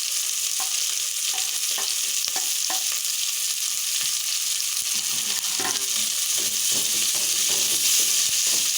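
Chopped green pepper sizzling in hot vegetable oil with fried onions, ginger and garlic in a cooking pot: a steady sizzle, with the spoon clicking and scraping against the pot as it is stirred.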